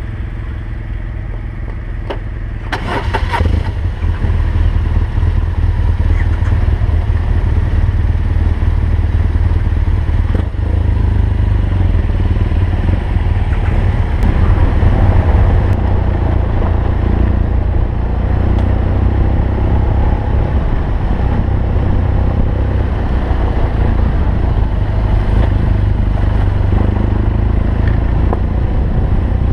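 BMW R1200GS boxer-twin motorcycle engine running under way, a steady low rumble. It gets louder about three seconds in, after a brief clatter.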